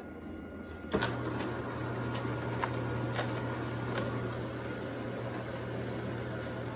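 A household appliance running with a steady low hum, starting about a second in, with a few light ticks over it.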